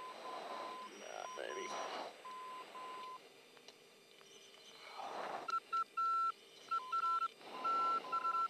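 Electronic beeping tones in an F-15C cockpit's headset audio, keyed on and off in short and long dashes like Morse code. First comes a tone near 1 kHz. Then, from about halfway through, a slightly higher and louder tone keys on and off the same way over a faint hiss.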